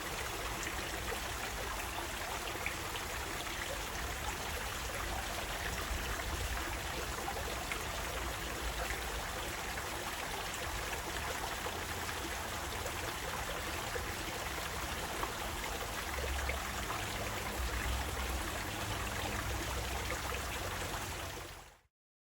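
Running water flowing steadily, an even rush with a low rumble beneath it, falling away to silence near the end.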